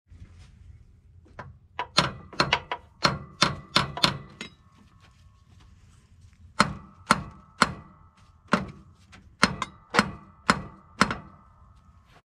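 Claw hammer striking metal, knocking the stuck starter loose from a Mack truck engine. There are two runs of quick blows, about ten then about nine, with a pause of about two seconds between them, and each blow has a short metallic ring.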